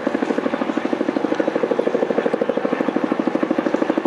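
Helicopter rotor beating overhead: a loud, fast, even pulsing.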